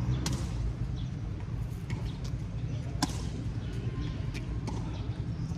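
Tennis ball struck by rackets in a rally: two sharp pops, about a quarter second in and about three seconds in, with fainter knocks between, over a steady low rumble.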